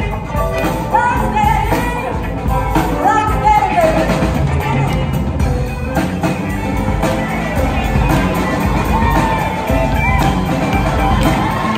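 Live soul band playing: women singing over drum kit, bass and electric guitar.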